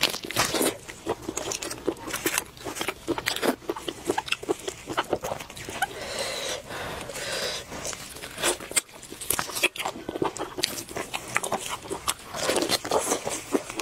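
Close-up eating sounds of a person biting and chewing spiced sheep's head meat: an irregular run of short clicks, crunches and mouth noises.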